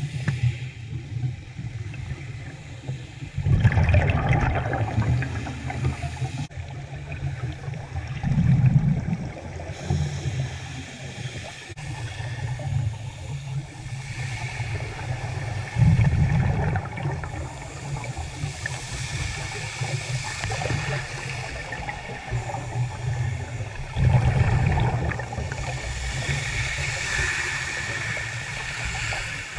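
Scuba diver breathing on a regulator, heard underwater through a GoPro dive housing: surges of exhaled bubbles come every several seconds, four times, over a steady, muffled low water rumble.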